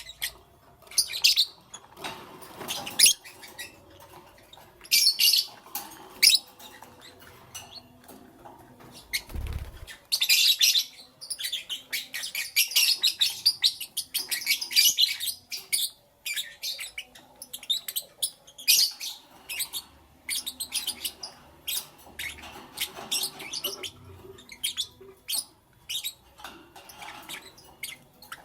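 Lovebirds chirping: quick, high, sharp chirps in irregular bursts, with a dense stretch of chatter in the middle. There is a single low thump about nine seconds in.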